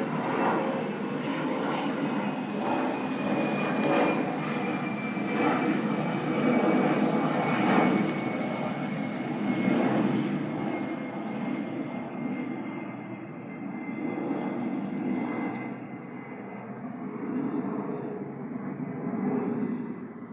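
Airbus A320's CFM56-5B jet engines running, a broad rushing noise with a thin whine that falls slowly in pitch as the engines spool down. The sound swells and eases and grows quieter in the second half.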